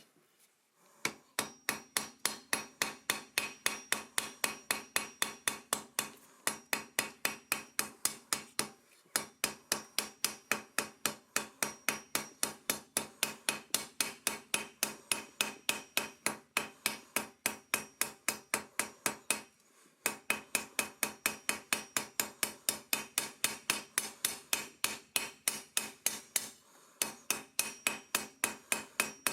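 Hand hammer striking hot steel on an anvil in a fast, steady rhythm of about four blows a second, each with a bright metallic ring, with a few short pauses between runs of blows.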